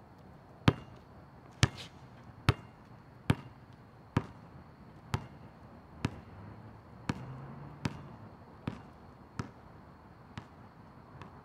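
Basketball dribbled on an asphalt court: about a dozen sharp bounces, a little under one a second, growing fainter as the dribbler moves away.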